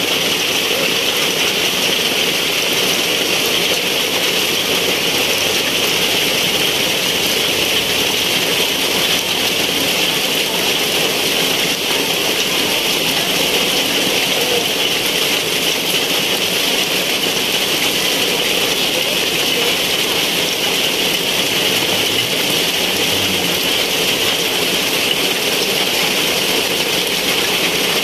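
Heavy rain pouring steadily, splashing on wet paving.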